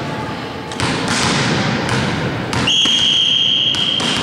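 Volleyball referee's whistle: one long, steady blast starting about two and a half seconds in, signalling the next serve. It is preceded by a single thump about a second in.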